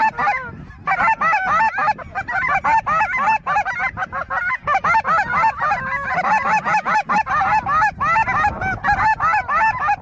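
A large flock of snow geese calling overhead: a dense, continuous chorus of many overlapping high-pitched calls, thinning only briefly about half a second in.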